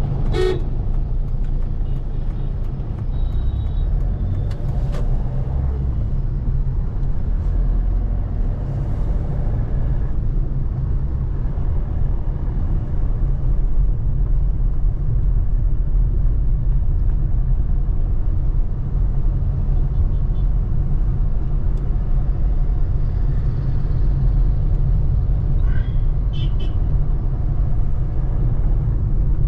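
Steady low road and engine rumble of a moving car, heard from inside the cabin. A few brief higher-pitched sounds come about 3 seconds in and again near the end.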